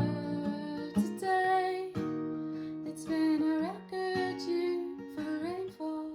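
Acoustic guitar strummed about once a second, letting the chords ring between strokes.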